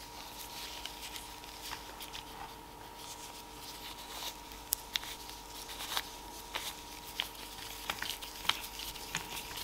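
Small clicks and light rustling of nitrile-gloved hands fitting a felt polishing wheel onto a metal rotary-tool mandrel, as scattered irregular ticks over a faint steady hum.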